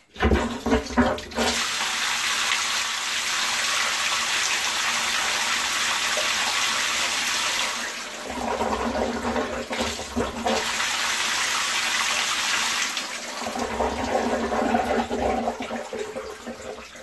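Flood coolant gushing from a milled aluminium ring of nozzles around a CNC router's end mill and splashing onto the machine bed: a steady rushing hiss of liquid, with heavier splashing about eight seconds in and again near the end.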